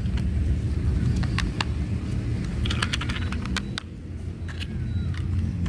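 Scattered sharp clicks and taps of hard plastic toy airliner parts being handled and fitted together, with a quick run of clicks about halfway through, over a steady low rumble.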